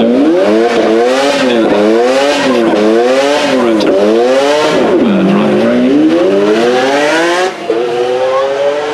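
Lamborghini Centenario's V12 engine revved hard about five times in quick succession, then held through one long rising run as the car launches and accelerates, with a brief dip near the end as it shifts up and pulls again.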